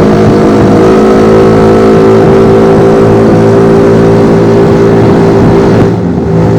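Motor vehicle engine running at a steady speed, loud and close, with a brief drop in level about six seconds in.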